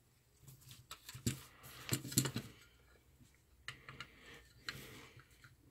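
Irregular clicks and knocks from handling a plastic circuit board holder as a circuit board is set into its spring clamps, a handful of short clicks spread over several seconds.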